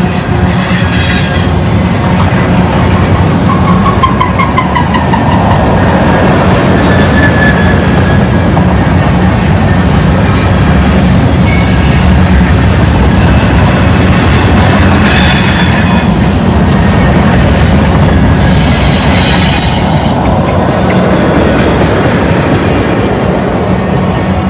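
Freight cars of a Union Pacific manifest train rolling past, a steady loud rumble of steel wheels on the rails. High-pitched wheel squeal comes and goes in several bouts, one near the start, one falling in pitch a few seconds in, and two more in the second half.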